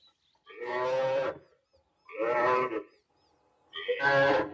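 Recorded distress bawls of a young buffalo being killed, played over a loudspeaker as bait to draw lions. Three long calls of about a second each, repeating with short gaps.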